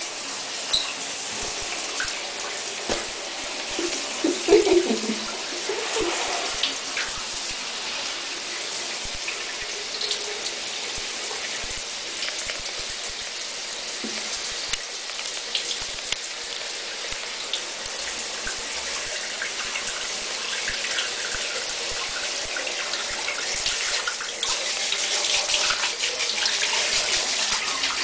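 Shower water running steadily, spraying over a dog and the tiled floor of a shower stall, getting louder near the end. A short vocal sound comes about four and a half seconds in.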